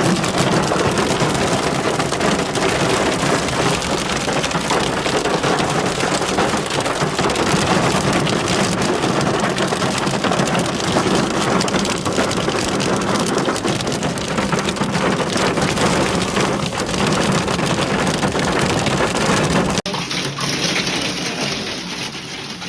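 Thunderstorm downpour of rain and hail drumming densely and steadily on surfaces, with many small hits. About twenty seconds in it drops to a quieter, thinner rain.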